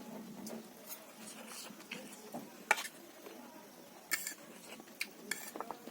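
Eating utensils clinking and scraping against a bowl during a meal of noodles and soup: a few short, irregular clicks.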